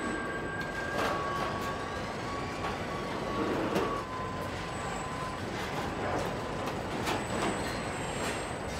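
Car body-shop ambience of KUKA industrial robots working on a car body: a steady machine hum with a couple of steady whining tones, broken several times by short sharp noises.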